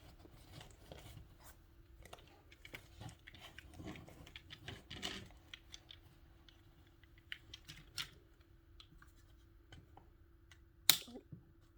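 Scattered small clicks and scrapes of plastic parts being handled and fitted on an in-wall power outlet kit, with one sharp click near the end.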